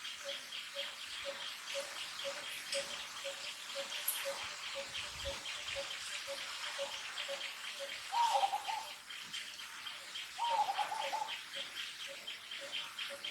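A baby macaque's short, wavering cries, twice, each under a second, over a steady rhythmic chirping of about three pulses a second.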